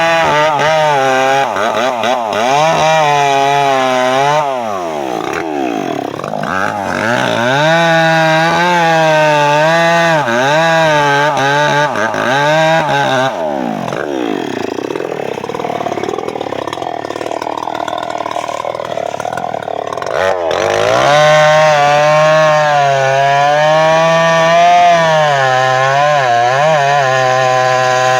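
Two-stroke chainsaw cutting teak, its engine pitch wavering as the load on the chain changes. The throttle eases off twice, about four seconds in and for several seconds around the middle, with the engine dropping lower before revving back up to cutting speed.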